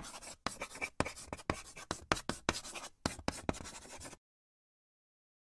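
Brush-stroke writing sound effect: a quick series of short, scratchy strokes, like a pen or brush dragged across paper, that ends abruptly about four seconds in.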